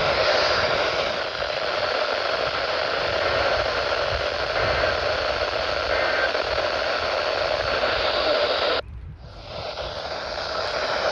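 Weather radio receiver putting out steady static hiss with no voice on the channel. Near the end the hiss cuts out suddenly, then comes back quieter.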